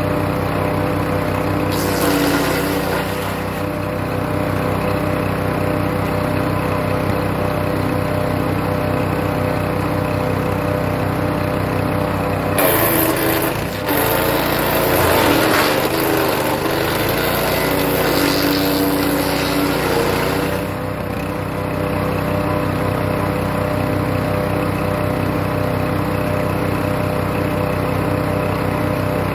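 Hecht 6208 wood chipper's small engine running steadily, with rough grinding bursts as birch branches are chipped, the loudest about halfway through and again near two-thirds of the way.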